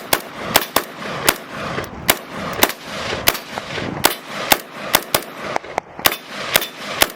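Kel-Tec RDB 5.56 mm bullpup rifle fired semi-automatically in a quick string, about two to three shots a second at an uneven pace, each shot with a short echo trailing off.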